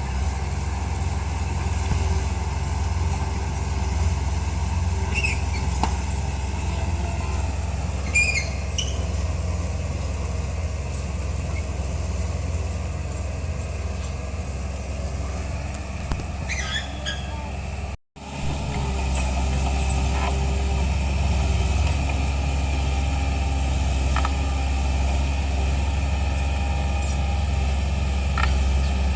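Komatsu D31P bulldozer's diesel engine running steadily as it works, with a few short high squeaks. The sound drops out for an instant about midway.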